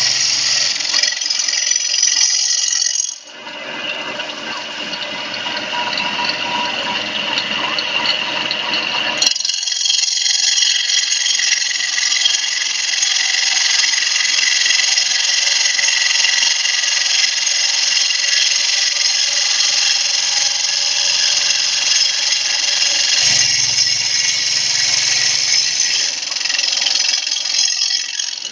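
Water-cooled circular saw blade of a stone CNC router cutting a stone slab: a loud, steady, high-pitched grinding hiss. It dips briefly about three seconds in and changes abruptly about nine seconds in.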